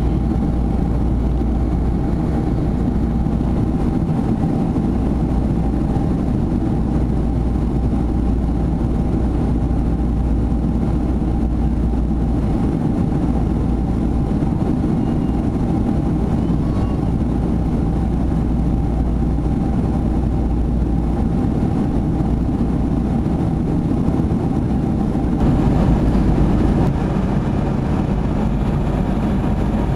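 Boeing 747 in flight heard from the passenger cabin: the steady low rush and hum of the jet engines and airflow, with a faint steady whine over it. Near the end it gets a little louder and brighter.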